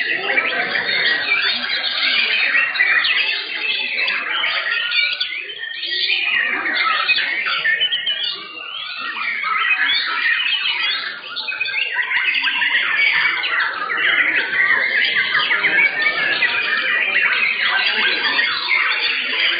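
Several white-rumped shamas (murai batu) singing at once from their contest cages: a dense, continuous tangle of fast, varied whistles and chirps.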